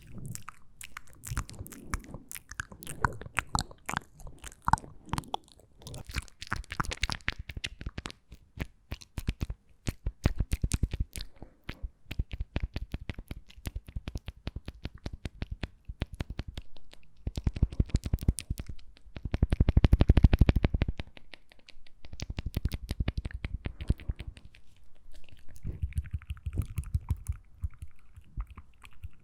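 Close-miked ASMR mouth sounds: rapid wet clicks and smacks of the lips and tongue, with a louder, fuller stretch about twenty seconds in.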